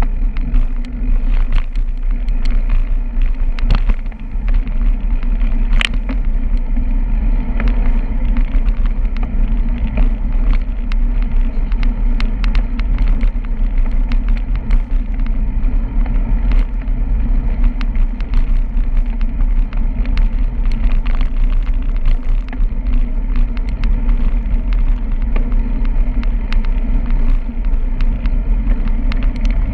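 Bicycle riding on a paved street, heard through a handlebar-mounted camera: a steady low rumble of wind and road vibration, with scattered sharp clicks and ticks.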